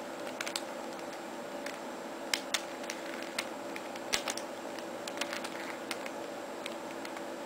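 Square-1 puzzle's plastic layers being twisted by hand: irregular light clicks and clacks as the pieces turn, over a faint steady hum.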